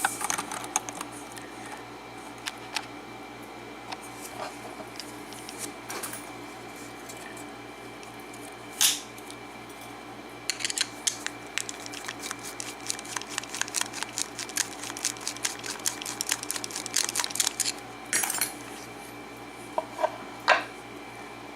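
Small metal tools clicking and scraping against a padlock as it is worked at for disassembly, trying to get its retaining clip off. The clicks are scattered at first, then come thick and quick through the middle, with a few sharper metal knocks.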